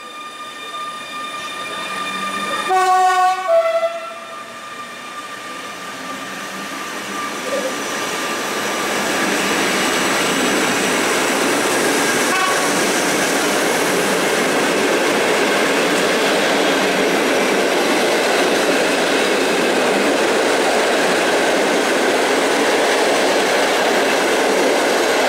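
PKP Intercity EU160 electric locomotive sounding a short horn blast about three seconds in, the RP1 'attention' warning signal. Its train of passenger coaches then rolls past with a steady rushing noise that grows louder and holds.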